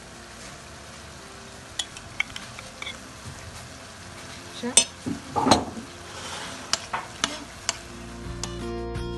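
Minced meat with onion and carrot frying in a pan, sizzling steadily while it is stirred, with the spatula scraping and knocking against the pan, loudest about five seconds in. Music comes in near the end.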